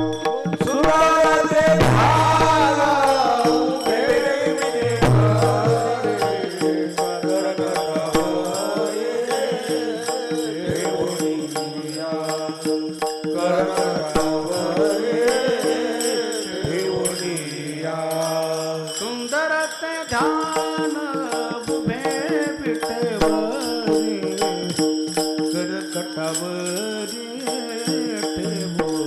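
A man singing a Marathi devotional kirtan chant over steady held accompanying tones, with light jingling percussion.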